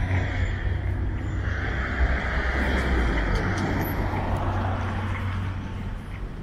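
A car passing on the street: engine rumble and tyre noise swell to a peak about two to three seconds in, then fade away.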